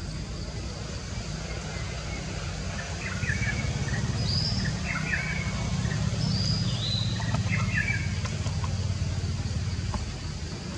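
A low, steady rumble, louder from about three seconds in and easing near the end, with a few short, high bird chirps in the middle.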